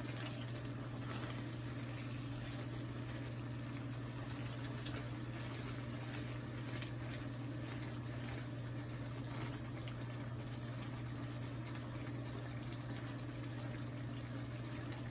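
Chicken roast gravy simmering in a sauté pan, a steady bubbling hiss with many faint ticks, over a steady low hum.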